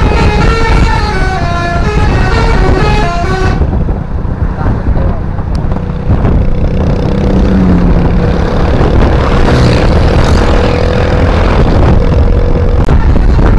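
Tour bus 'telolet basuri' musical multi-tone horn playing a quick tune of stepping notes, breaking off about three and a half seconds in. After that comes loud engine and road noise with one steady horn-like tone held for several seconds.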